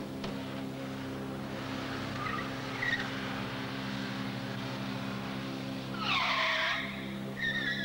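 Security van driving off with its engine running, then tyres squealing hard about six seconds in as it brakes, with a shorter squeal near the end.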